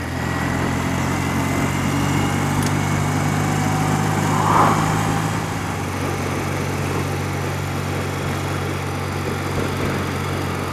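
Engine of a 30-year-old BMW motorcycle running steadily at road speed, heard with wind and road noise, with a brief louder rush a little before halfway.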